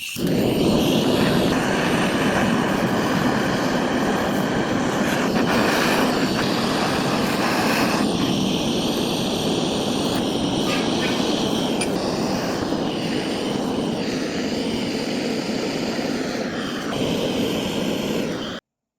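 Small engine running fast and steady, a loud dense rattle with hiss, cutting off abruptly near the end.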